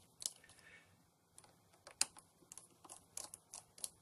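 Small, irregular clicks and ticks of a precision screwdriver turning out the tiny screws of a Western Digital Scorpio Blue laptop hard drive's controller board, with one louder click about two seconds in.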